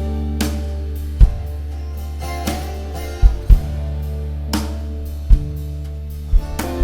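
Band playing an instrumental passage: guitars and bass holding sustained chords over a drum kit, with heavy kick-drum hits every second or two.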